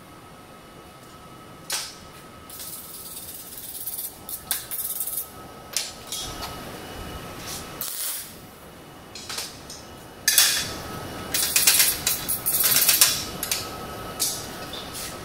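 MIG welder arc crackling and hissing in short bursts as tube joints are tacked, then a longer, louder weld run starting about ten seconds in.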